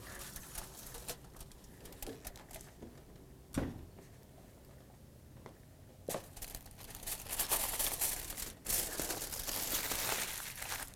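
Aluminium foil crinkling loudly as it is peeled off a pan and crumpled into a ball, starting about six seconds in. Earlier, a single knock about three and a half seconds in.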